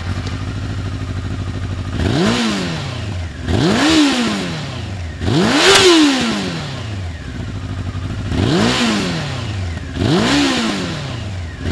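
First-generation Honda CBR900RR Fireblade's 893 cc inline-four idling, then blipped five times, each rev rising sharply and falling straight back to idle.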